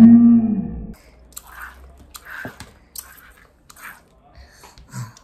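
A woman's long drawn-out cry, rising then falling in pitch, in the first second. Then faint soft squishes and small clicks as liquid is squeezed from a small plastic squeeze bottle into a plastic bowl.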